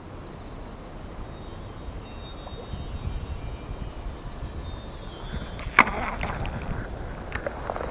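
A bright, shimmering chime with many high ringing tones that drift slowly downward over about four seconds, the kind of sparkle sound effect laid under an on-screen caption. About six seconds in comes one sharp click, with a couple of fainter clicks just before the end.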